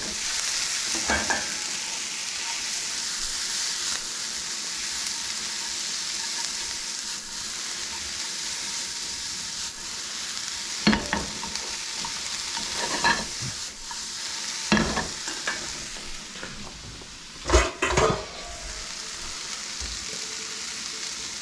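Cabbage and onion sizzling in a skillet over high heat, a steady hiss, with a few scattered knocks and clinks of utensils against cookware; the loudest are two close together near the end.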